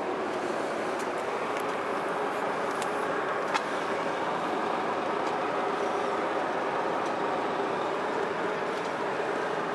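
A 1993 Harley-Davidson FLHTC Ultra's 1340 cc Evolution V-twin engine running steadily at idle, with one sharp click about three and a half seconds in.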